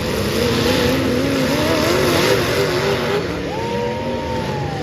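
Several demolition derby car engines revving hard, their pitches wavering up and down over one another, with the broad rumble and clatter of the arena. About three and a half seconds in, a higher whine jumps up, holds steady and then sags away.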